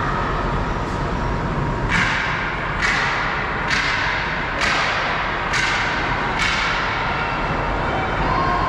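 Six sharp bangs at an even beat, a little under a second apart, each echoing in the hockey rink over steady arena noise.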